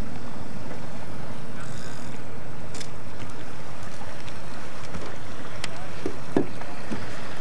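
Steady rush of wind and water noise aboard a sailboat under way, with a few faint clicks.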